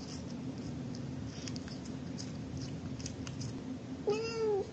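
Tabby cat gives one short meow near the end, its pitch rising then falling. Before it, only faint scattered clicks.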